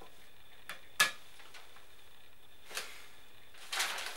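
A sharp click about a second in as a mobile phone is set down on a sink counter, with a couple of softer taps, then newspaper pages rustling near the end.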